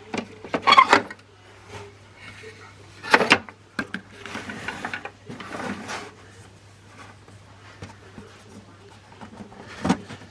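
Clicks, knocks and rustling from a plastic toy washing machine being handled, over a steady low hum. The loudest knocks fall a little under a second in, about three seconds in, and near the end.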